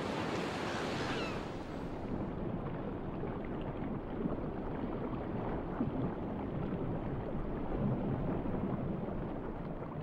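Seawater sloshing and lapping at the surface, turning into a muffled, steady underwater rush after about two seconds.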